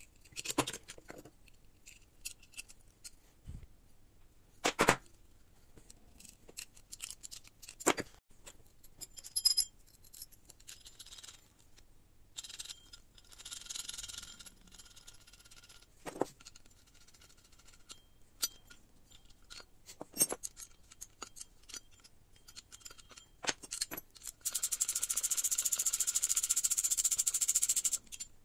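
Small metal parts and hand tools handled on a workbench: scattered clicks and knocks as a steel shaft, bearings and bracket are fitted together, then near the end a dense steady rattle of metal lasting about four seconds, the loudest sound.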